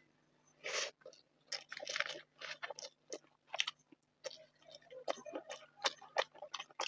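Close-up mouth sounds of chewing a mouthful of rice and curry: irregular wet smacks and light crunches, several a second, starting a little way in.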